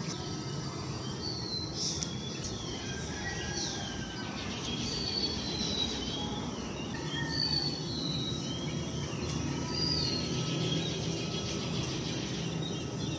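Birds chirping and whistling in short calls scattered throughout, over a steady low outdoor hum.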